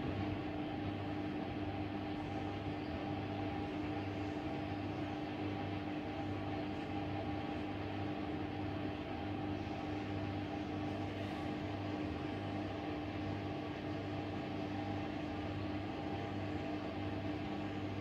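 Hoover DXOA69HC3B front-loading washing machine running mid-cycle: a steady motor hum with a low, evenly pulsing throb.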